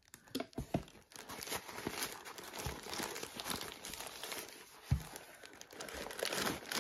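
Irregular rustling and crinkling as a fabric drawstring pouch is handled and its drawstring pulled open, with one sharper knock about five seconds in.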